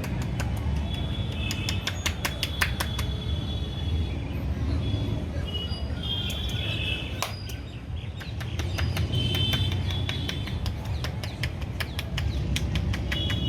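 Rapid, irregular sharp taps and slaps of hands working on a head during a traditional Indian head massage, easing off briefly about halfway through. Birds chirp on and off over a steady low rumble.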